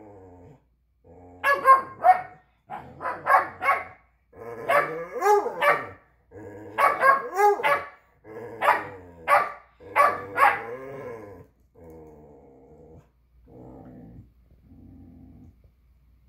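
An older beagle-type hound barking over and over at a puppy, with a couple of drawn-out calls that rise and fall in pitch. About eleven seconds in, the barks give way to quieter, lower grumbling sounds.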